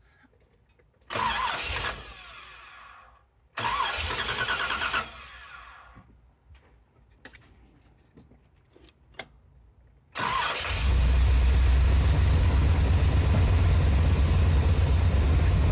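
1981 Corvette's 350 V8 being cranked on the starter: two short attempts that die out, then a third about ten seconds in catches and settles into a steady idle. It is being restarted after stalling while its carburetor idle mixture is adjusted.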